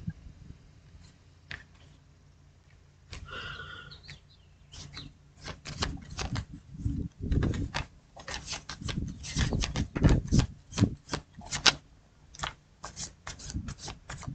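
A tarot deck being shuffled by hand: a run of quick, sharp card snaps and clacks that starts a few seconds in and goes on irregularly.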